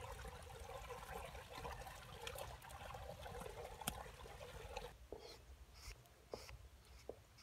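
Muddy water trickling and sloshing as hands dig in wet mud beside a drain pipe, with scattered soft clicks. It drops away about five seconds in, leaving a quieter background with a few faint short sounds.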